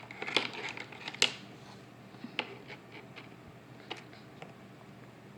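Light clicks and taps of small toy pieces being handled and fitted into a pop-up toy, several close together in the first second or so, then single clicks spaced out.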